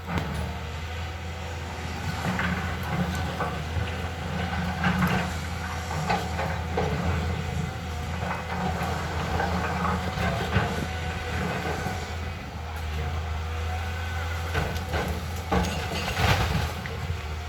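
Caterpillar excavator's diesel engine running steadily, with scattered metallic clanks and knocks from the machine and a cluster of louder knocks near the end.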